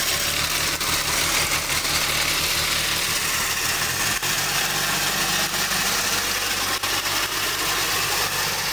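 Tractor engine running steadily under load while its mounted wheat reaper-windrower cuts standing wheat and lays it in a row, making a loud, even mechanical din with a steady low engine hum.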